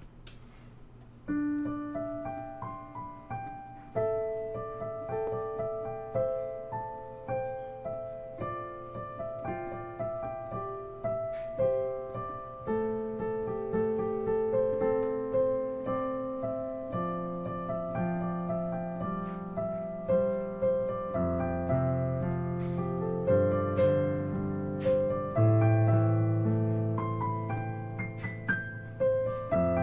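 Digital piano being played: a melody over chords, starting about a second in, with deeper bass notes joining about two-thirds of the way through.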